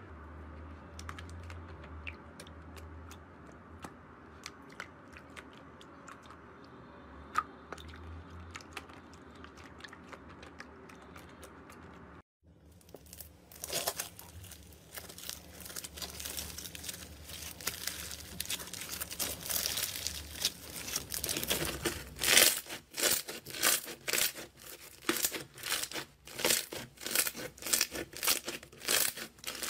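Hand-played slime. First there are faint sticky clicks and small pops from a glossy slime. After a brief dropout comes the crackly tearing of a fluffy cloud slime being stretched. From about two-thirds of the way through, a beaded crunchy slime is pressed with the fingers, giving sharp repeated crunches at about two a second.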